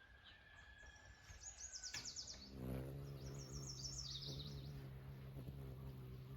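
A wild songbird sings two quick, high trilling phrases of rapidly repeated notes. About two and a half seconds in, a steady low hum starts up underneath and keeps going.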